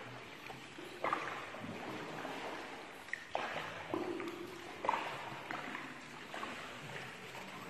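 Water sloshing under a paddled tour boat, with a few sharper paddle splashes about a second, three seconds and five seconds in.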